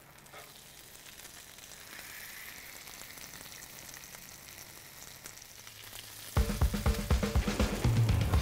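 Beef smash-burger patties sizzling in oil on a stainless flat-top griddle as they are pressed flat with a steel burger press, a faint steady hiss that slowly grows. About six seconds in, background music with a steady beat comes in and drowns it out.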